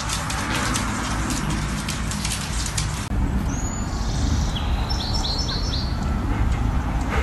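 A run of quick, irregular sharp clicks of a small dog's claws on a wooden floor. After about three seconds this cuts to a steady low outdoor rumble, over which a small bird chirps a quick run of four or five notes about five seconds in.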